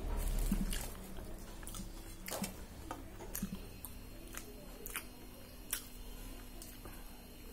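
A person eating fried puri by hand at close range: chewing, with the soft crackle of the bread being torn and scooped from a steel plate. Scattered short clicks and smacks come at irregular intervals.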